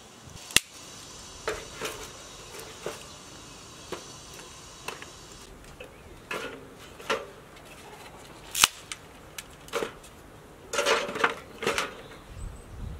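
Sharp knocks and clinks of firewood sticks against a small sheet-metal wood stove as it is handled and loaded, scattered singly and then in a quick run of several near the end.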